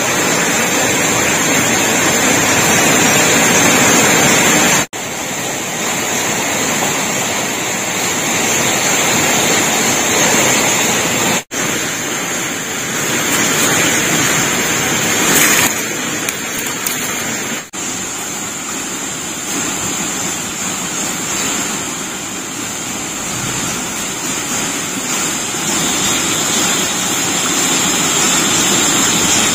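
Steady rushing noise of a small forest stream, with a steady high hiss over it; the sound drops out briefly three times, about six seconds apart.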